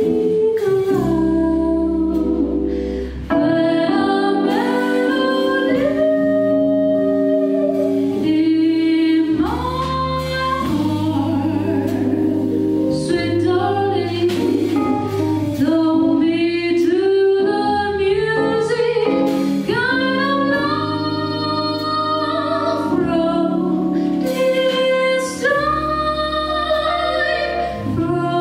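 A female jazz vocalist singing a slow ballad in long, held notes with vibrato, accompanied by a piano trio of piano, double bass and drums.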